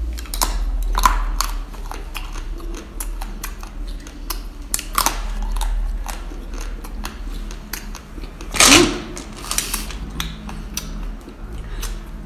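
Close-up biting and chewing of a keyboard-shaped chocolate candy: many short, sharp crunching cracks, with one louder bite about three-quarters of the way through.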